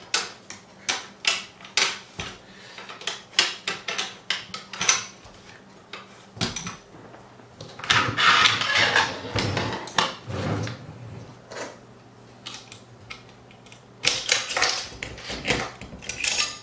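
Steel parts of an M1 Garand's action clicking, knocking and rattling as the rifle is taken apart by hand. Sharp metal clicks come one after another, with a longer sliding rattle in the middle and a quick run of clicks near the end.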